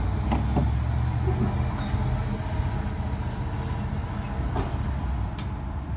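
Low rumble of road traffic, a passing vehicle that fades out about a second and a half in, with a few light clicks.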